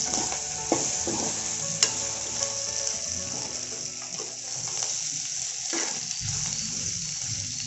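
Dried anchovies sizzling as they fry in oil in an aluminium kadai, with a steel spoon stirring and scraping through them and a few sharp clicks where it knocks the pan.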